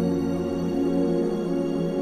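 Ambient background music: sustained, steady low tones held like a drone.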